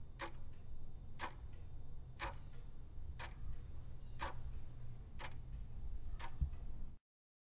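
Clock-ticking sound effect marking a quiz countdown timer, one tick a second over a low steady hum, cutting off suddenly near the end.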